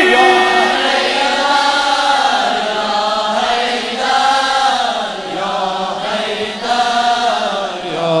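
Chorus of young men's voices singing an Urdu devotional anthem (tarana) in unison, drawing out long notes that rise and fall.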